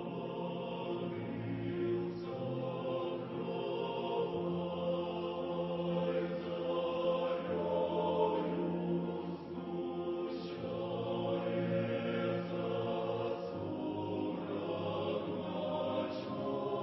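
Choir singing a slow hymn in long held chords that change every few seconds.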